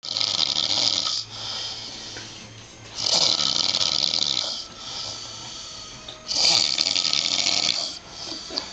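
A man snoring while passed out asleep: three loud snores about three seconds apart, each lasting a second or more, with quieter breaths in between.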